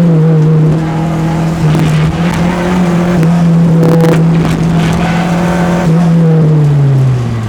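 Peugeot 205 engine running hard at high, steady revs, its pitch falling steadily over the last second or so as the revs drop.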